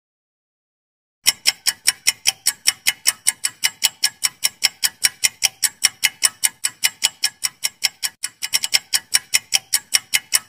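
Quiz countdown-timer sound effect: clock ticking fast and evenly, about five sharp ticks a second, starting about a second in.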